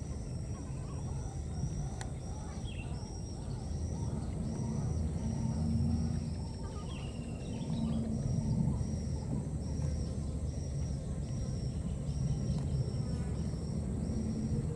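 Outdoor ambience: a steady low rumble under a high, short chirp that repeats about twice a second, with a couple of faint squeaks.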